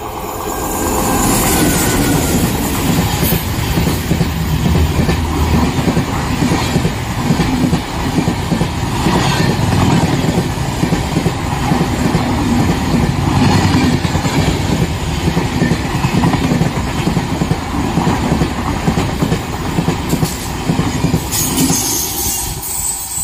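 Express passenger train with an electric locomotive passing close by at speed: wheels clattering over the rail joints and coaches rushing past. The sound builds as the locomotive arrives, about a second in, and eases off near the end as the last coach goes by.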